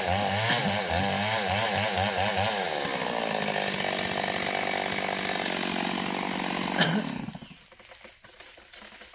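Mini chainsaw engine running, its pitch wavering quickly up and down for the first couple of seconds, then holding steady, before it dies away about seven seconds in.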